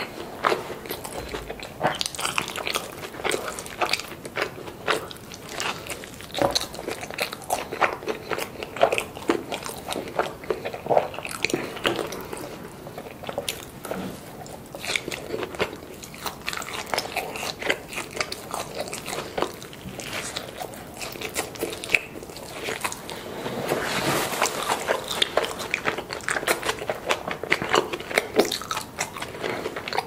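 Close-up eating sounds of a carne asada burrito: chewing and biting, a steady run of short sharp crunches and wet mouth clicks, busier for a couple of seconds about 24 seconds in.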